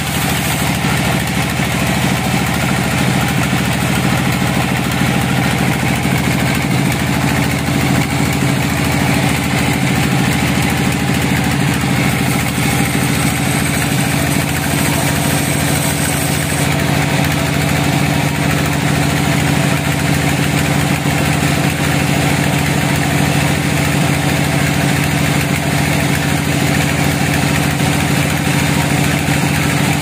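Band sawmill running as its blade cuts lengthwise through a large log: a steady mechanical drone with a low hum. A faint high whine comes in for a few seconds around the middle.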